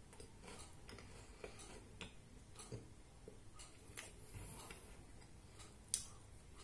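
Faint, irregularly spaced small clicks and ticks in a quiet room, with one sharper click about six seconds in.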